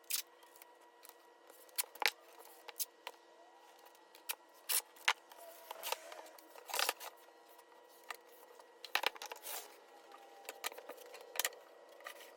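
Painter's tape being pulled off the roll and torn in short rasps, with scattered clicks and knocks from handling birch plywood pieces. A faint steady hum runs underneath.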